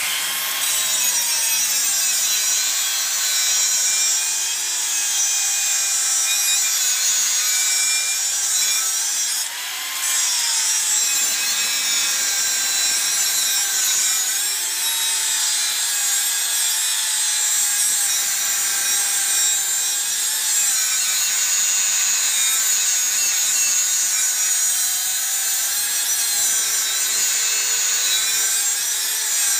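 Angle grinder cutting through a steel car leaf spring: a steady grinding whine over a hiss, its pitch sagging and recovering as the disc bites into the metal, with a brief drop in loudness about ten seconds in.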